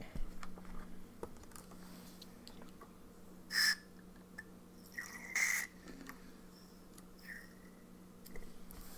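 Quiet room tone with a steady low hum, a few faint clicks, and two short hissing noises about three and a half and five seconds in.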